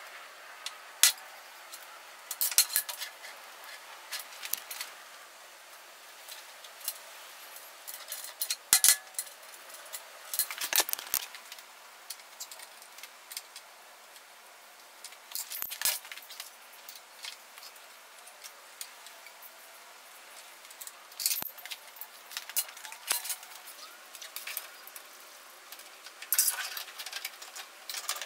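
Scattered light metallic clicks and clinks, in short bursts, from anodised aluminium hose-end fittings being handled, screwed together and tightened with a spanner on braided oil-cooler hose.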